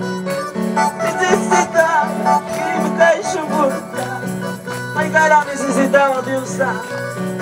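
Worship music: a bass line stepping between two notes about twice a second under held chords, with a wavering lead melody above.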